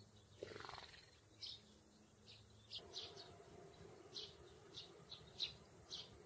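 House sparrows chirping faintly: about ten short, high chirps at uneven intervals, the loudest about five seconds in. A faint steady hum comes in about three seconds in.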